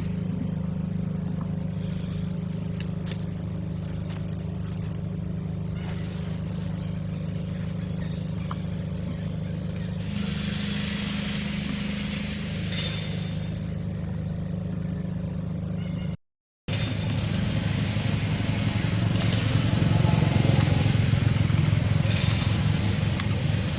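An engine running steadily at idle, with a brief silent gap about two-thirds through, after which it is a little louder.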